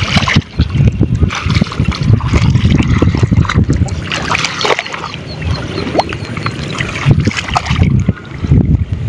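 Legs wading through muddy, flooded rice-paddy water: irregular sloshing and splashing as the feet move and the hands dip into the mud. A quick run of faint high chirps comes in about four seconds in.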